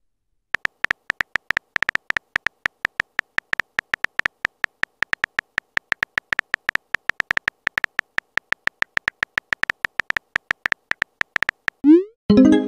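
Simulated phone-keyboard key clicks from a texting-story app, a short tick for each typed letter in a quick irregular run. Near the end comes a rising whoosh and a ringing chime as the message is sent.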